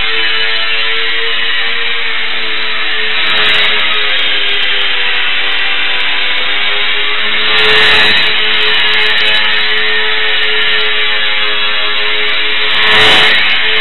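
E-Flite UMX Extra 300 ultra-micro RC plane's electric motor and propeller whining at a steady pitch that drifts a little with the throttle. The sound swells twice, at about eight seconds and again near the end, as the plane passes close by.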